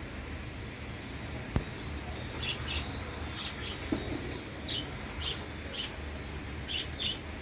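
Budgerigars chirping: short high chirps in quick clusters from about two and a half seconds in, over a steady low background noise. One sharp click about a second and a half in is the loudest sound, with a softer knock just before four seconds.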